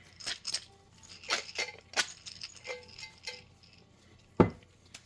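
Glass mason jar of popcorn grain spawn being knocked and shaken to break up the colonized kernels: scattered knocks and glassy clinks, with one heavier thump about four seconds in.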